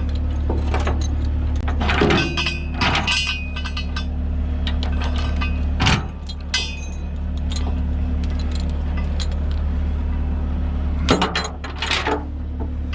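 A heavy diesel equipment engine running steadily at idle, with repeated metallic clanks and rattles of recovery chains being handled, the loudest about 2, 6 and 11 seconds in.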